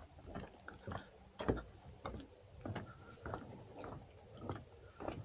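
Footsteps of a person walking at an easy pace, a short knock roughly every half second.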